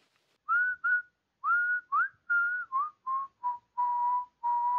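A person whistling a short tune of about ten notes, the pitch stepping down through the phrase and ending on a long held note.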